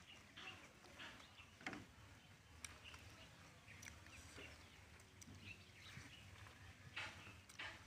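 Near silence: faint outdoor ambience with a few scattered soft clicks and rustles.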